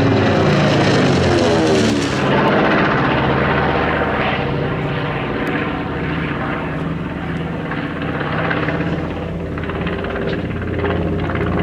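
Piston-engined propeller warbird flying past low, its engine note sliding down in pitch as it passes about two seconds in, then a steady engine drone as it moves away.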